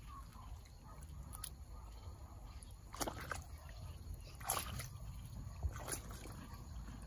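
Hands digging into wet mud and water at an eel hole, with several short wet squelches and splashes, the loudest about halfway through.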